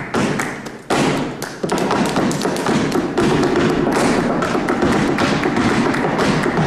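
Flamenco footwork (zapateado): shoes striking a stage floor in fast, dense rhythmic taps and stamps, thinning briefly in the first second or so, then running on without a break.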